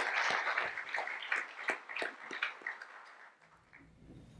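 Audience applause, many hands clapping, thinning out and dying away about three seconds in; a faint low hum follows near the end.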